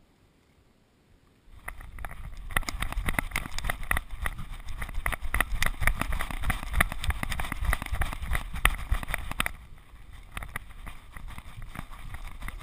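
Rumbling wind buffeting and rapid knocks of a GoPro camera strapped to a Border Terrier's back as the dog moves about, starting suddenly about a second and a half in after near silence and easing a little near the end.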